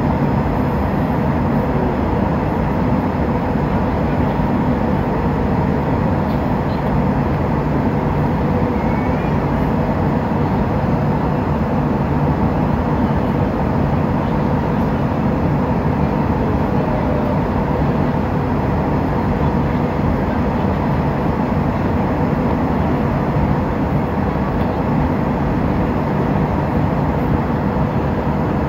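Airliner cabin noise in flight: a steady rushing hum of the engines and airflow heard from inside the passenger cabin, with a few faint steady tones in it.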